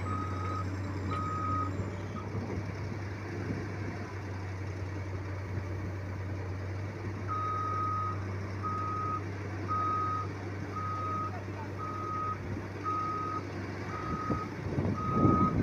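Heavy machine's backup alarm beeping at one steady pitch about once a second over a steady diesel engine hum. The beeps pause for a few seconds early on, then resume. A louder, irregular burst of noise comes near the end.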